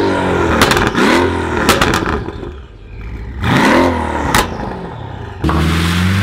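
A car engine revved hard several times, each rev rising and falling, with a few sharp pops between them. About five and a half seconds in it cuts to a car accelerating, its engine note climbing steadily.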